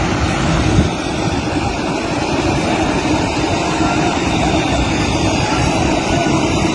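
Steady rushing noise of muddy floodwater pouring down a cliff face into a flooded basin.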